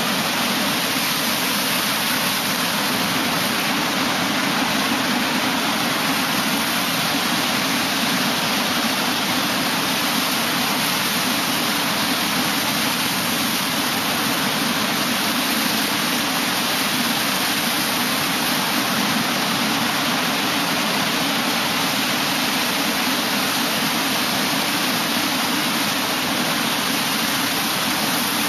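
Ocean surf breaking and foamy backwash rushing over the sand close by, a steady rushing hiss with little rise and fall.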